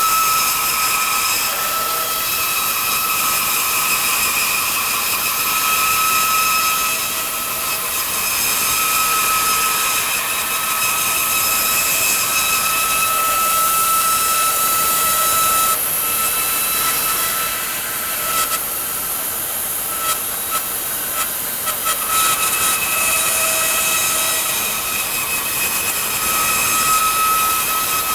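Bandsaw resawing a hard maple board, running steadily with a constant high whine over the noise of the blade cutting.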